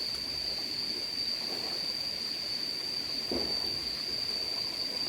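Steady, high-pitched insect drone, like a cicada chorus, holding one slightly wavering pitch throughout.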